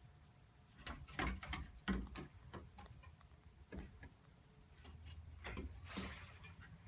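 A scatter of faint clicks and knocks, several in quick succession about a second in and another cluster near the end.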